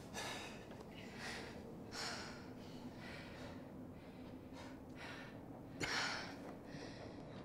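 A person breathing heavily, with several sharp, hissing breaths in and out spaced irregularly. The loudest comes about six seconds in.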